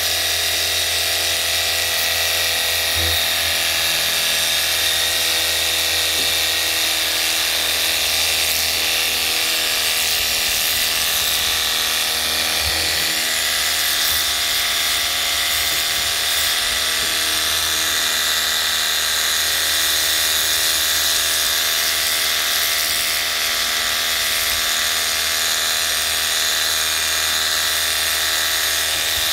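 TNEIIA 48V cordless pressure washer running without a break, its piston pump and motor giving a buzzing whine, with the hiss of the water jet spraying against a boat's hull.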